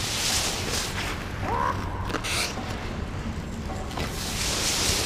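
Goalie's skate blades and leg pads scraping and sliding on the ice in three hissing pushes about two seconds apart, over a steady low rink hum.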